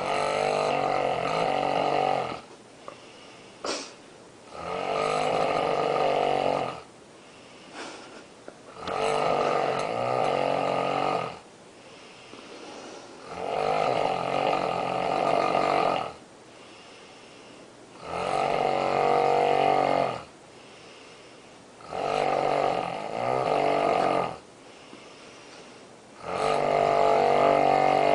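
A woman snoring loudly in her sleep: seven long, rasping snores at a steady rhythm, about one every four to five seconds, with quiet breaths between them.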